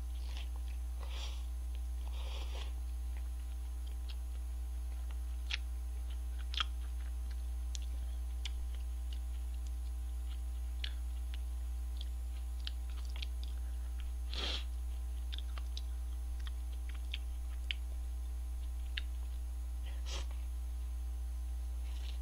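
A person eating instant cup noodles close to the microphone: slurping and chewing, with a few louder slurps about 1 s, 2.5 s, 14.5 s and 20 s in and scattered small clicks between, over a steady low hum.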